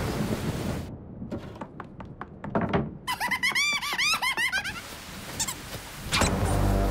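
Cartoon sound effects: rain noise at first, then a few light knocks followed by a quick run of squeaky chirps that rise and fall. Rain comes back near the end.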